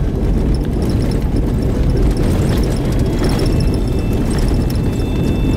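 Car driving at about 30 mph over a rough concrete road covered in dirt and sand, heard from inside the cabin: a steady low rumble of tyres and suspension, with scattered small ticks and knocks.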